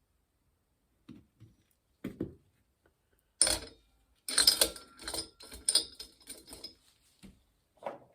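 Small steel ball bearings being pried out of a bicycle headset bearing cage, clicking and rattling as they come free and drop. A few soft taps come first, then a quick run of sharp clicks in the middle.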